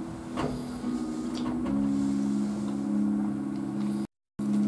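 Background music of held low notes that change pitch about two seconds in, with a few short clicks over it. The sound cuts out completely for a moment near the end.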